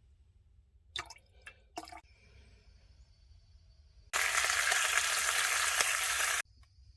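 A rush of running water, loud and even, that starts and stops abruptly and lasts about two seconds, after a couple of faint clicks of handling.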